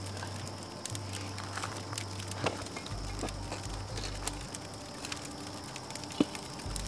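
Wood campfire crackling and popping with many scattered sharp snaps as burning logs are moved around a cast-iron Dutch oven. Two louder knocks stand out, one about two and a half seconds in and one near the end.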